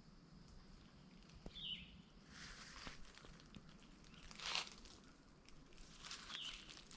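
Slow footsteps crunching through dry leaves and ground cover, starting about two seconds in, with a few steps about two seconds apart. A short bird call that falls in pitch sounds twice.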